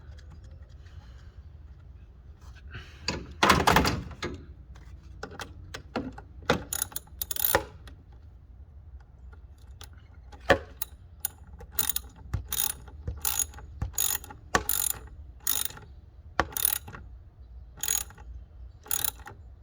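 Hand ratchet wrench worked in short strokes, each stroke giving a burst of sharp ratchet clicks, with the bursts coming regularly about every two-thirds of a second through the second half. A louder clatter of metal tools comes a few seconds in.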